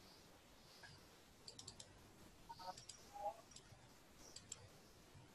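Near silence with a few faint computer clicks in small groups, from working a mouse and keyboard while editing a document.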